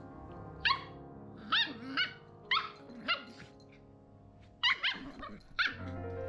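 A young puppy yipping: about eight short, high-pitched yips in quick clusters, with background music under them.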